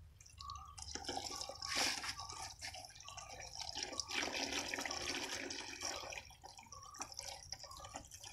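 Water running from a garden hose into a large tub, splashing and trickling against the tub's side as it fills around a potted plant, with the flow louder and fuller at times.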